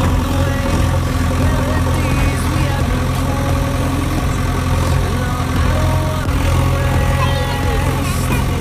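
An engine idling steadily, a low even running sound with no change in speed.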